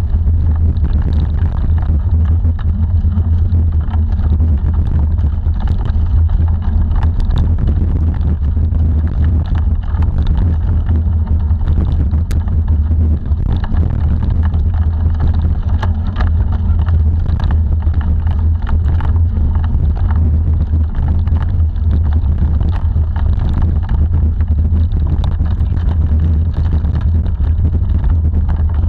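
Steady low rumble of a bike rolling fast over a dirt and gravel forest track, with wind buffeting the handlebar camera's microphone. Scattered small clicks and rattles from the bike run through it.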